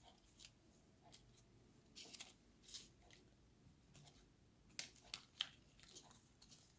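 Faint, scattered crinkles and light ticks of folded paper origami models being handled and moved over a table: a few short ones about two seconds in and a quick cluster around five seconds in.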